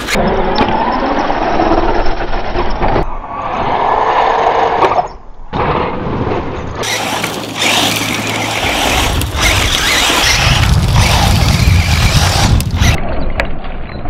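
Large-scale RC off-road buggies driving on a dirt track: motor and drivetrain whine rising and falling with the throttle, with tyres scrabbling over loose dirt. The sound changes abruptly several times, from one shot to the next.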